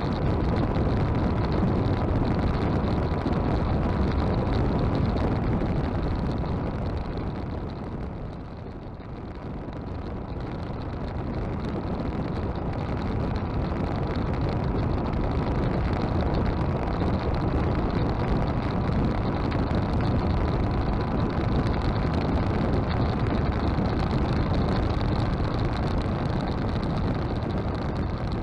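Motorcycle riding at highway speed: a steady rush of wind, engine and road noise, easing about eight seconds in and building back up a few seconds later.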